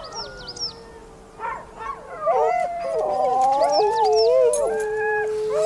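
A pack of huskies howling and yelping together. There are short high whines at first, then from about two seconds in several long howls overlap and glide up and down in pitch. This is the excited howling of sled dogs restless to get going.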